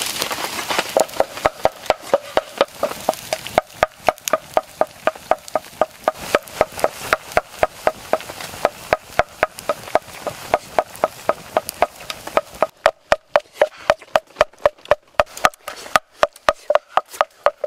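Rhythmic wooden knocking, about three knocks a second, each knock with a short ringing tone, starting about a second in after a brief hiss.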